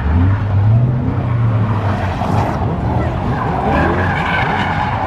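Car engine revving hard while its tires spin and squeal on the pavement. The tires are losing grip in a burnout or spin.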